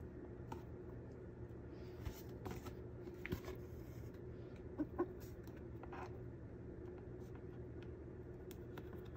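Faint rustling and a few light taps from handling a hand-stitched journal: bookbinding thread drawn through the spine and the book being turned. A steady low hum runs underneath.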